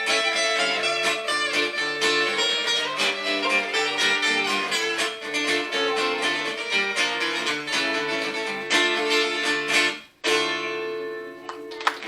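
Live guitar music playing a fast, busy melody over steady chords. About ten seconds in it stops short for a moment, then a final chord is struck and left ringing, fading near the end.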